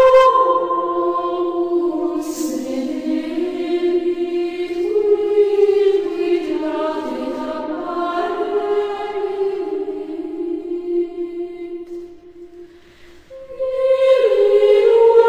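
Slow, chant-like singing by voices, long notes held and moving in steps. It breaks off for about a second near twelve seconds in, then resumes.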